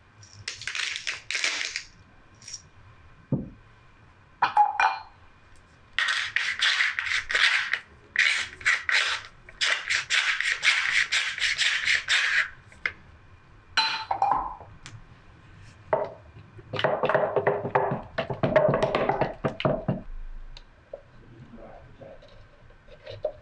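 A wooden spatula stirring egg-and-ricotta tart filling in a plastic jug, in bursts of quick scraping strokes against the jug. In the last few seconds the filling is scraped out of the jug into the tart crust.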